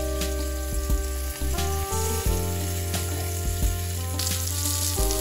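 Floured flounder pieces sizzling in hot oil in a frying pan, with scattered pops, over background music.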